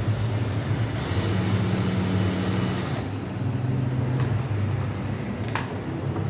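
Power screwdriver running for about two seconds, then again briefly, driving a screw tight. A single sharp click near the end.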